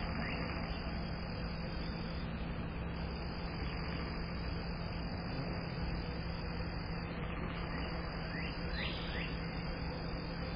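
Outdoor air-conditioning condenser unit running with a steady hum. A bird gives a few short falling chirps about eight and a half seconds in.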